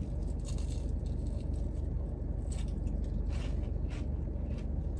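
Chewing a crispy breaded pickle fry, a few faint crunches spread through the chewing, over a steady low hum in the car cabin.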